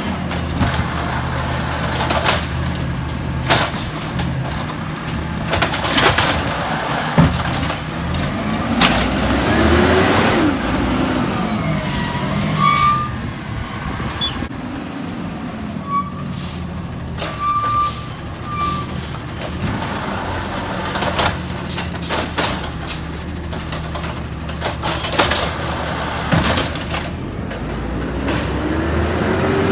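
Peterbilt 320 automated side-loader garbage truck's engine running, rising and falling in pitch twice (around ten seconds in and near the end) as it powers the lifting arm. Repeated knocks and clanks of the cart and arm come through over it.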